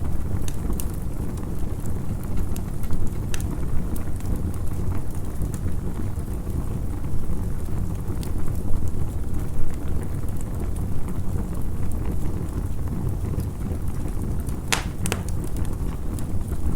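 Campfire crackling: scattered sharp pops and snaps over a steady low rumble, with one louder pop near the end.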